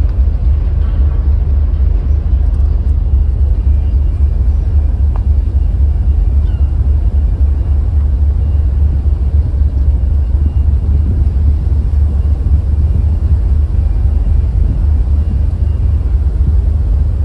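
Steady low rumble on the open deck of a ferry under way, with wind buffeting the microphone over the ship's engine noise.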